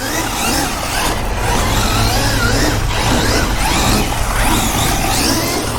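Losi 6IX radio-controlled car running, its electric motor whining and wavering up and down in pitch with the throttle over steady tyre and wind noise.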